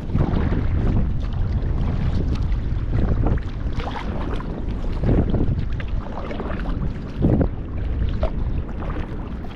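Folding sea kayak being paddled: paddle strokes splashing into the water about once a second over sloshing water, with heavy wind noise on the microphone.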